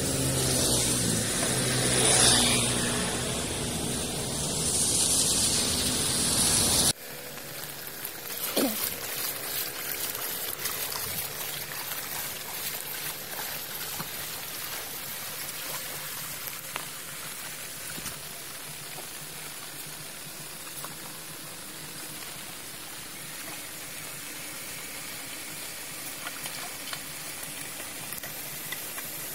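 Road traffic, with a motor scooter passing on a wet street. An abrupt cut about seven seconds in leads to quieter floodwater trickling and draining, with small splashes as a wooden stick is worked through the muddy water to clear a clogged culvert.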